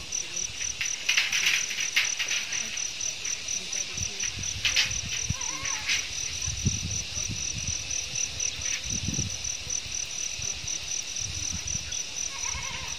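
Insects chirping in a steady, evenly pulsed high trill, with a few low rumbles and short clicks in the background.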